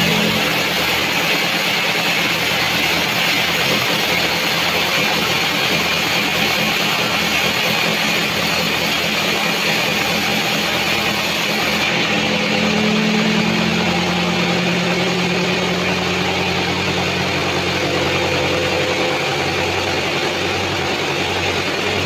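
Band sawmill running and sawing through a large albasia (sengon) log lengthwise: a steady machine hum with the continuous noise of the blade cutting the wood.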